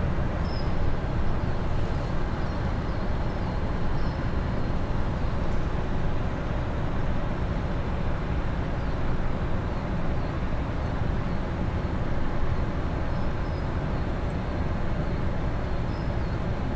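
Steady low rumble and hiss of outdoor background noise, unchanging throughout, with a few faint high chirps.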